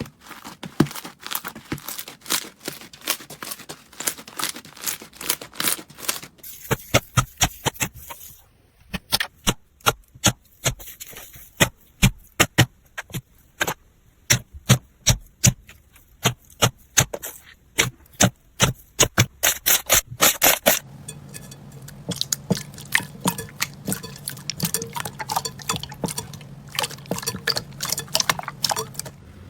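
Slime being squeezed and poked by hand, giving runs of sharp crackling clicks and pops, across several short clips that change every few seconds.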